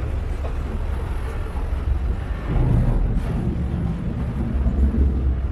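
Motorboat engine running steadily under way, a low rumble that swells briefly a little over two seconds in, with wind buffeting the microphone.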